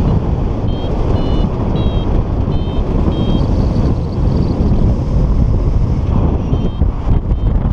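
Wind rushing over the microphone in paraglider flight, with a variometer's short high beeps coming in quick runs, breaking off for a few seconds midway and returning near the end: the vario signalling lift in a thermal.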